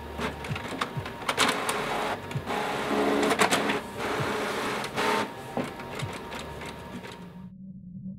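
Printer printing a page: stretches of motor whirring broken by clicks of the paper feed. It stops suddenly about seven and a half seconds in, leaving a low hum.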